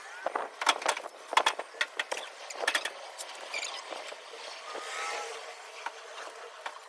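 Metal parts and tools being handled: a quick series of sharp clanks and clicks for the first few seconds, then scattered lighter clicks and a brief squeak about five seconds in.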